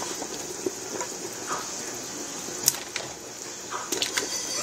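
A pot of beef broth boiling on the stove: a steady hiss with scattered small pops and clicks, one sharper click a little under three seconds in.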